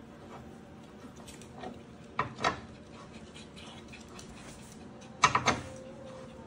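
Metal clinks and knocks from a bike pedal being handled and fitted onto an exercise bike's crank arm: two sharp knocks about two seconds in, then a quick run of three near the end.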